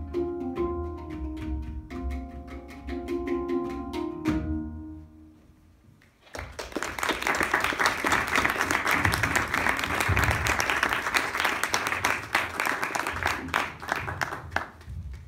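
Two handpans and a banjo play the last notes of a piece, which ring and die away about five seconds in. The audience then claps for most of the rest.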